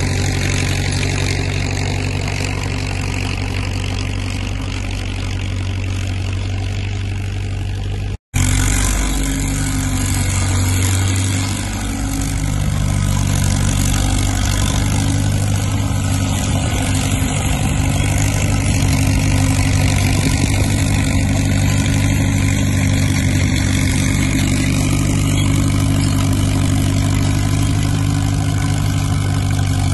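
IH T-9 crawler dozer's engine running steadily under load as the machine drags and pushes snow. The sound cuts out for an instant about eight seconds in, then the engine carries on.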